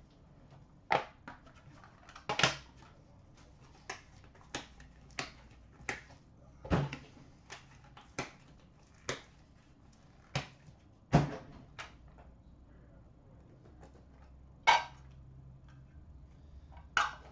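Clear hard plastic card cases being handled, opened and set down by hand: a string of sharp, irregular clicks and knocks, about twenty in all, a few of them louder.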